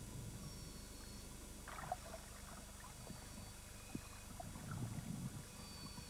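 Quiet low underwater rumble with soft water sounds that swell in places, and a few faint clicks, one about two seconds in and one about four seconds in.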